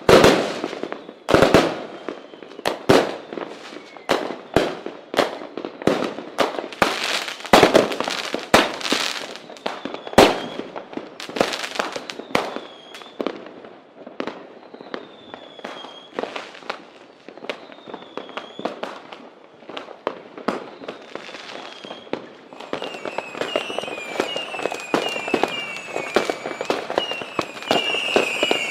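Fireworks and firecrackers going off: a rapid, irregular series of loud bangs and sharp cracks. High falling whistles come in over them about halfway through, thickening near the end into a dense run of short whistles with crackling.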